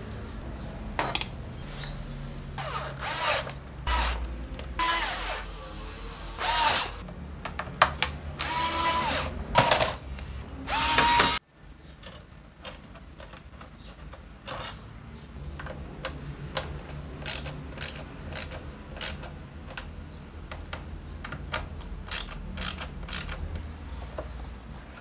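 Small power drill-driver whirring in about six short bursts, its pitch dipping and rising in each, until a sudden cut. Then comes a run of light clicks and knocks as plastic and metal radio parts are handled.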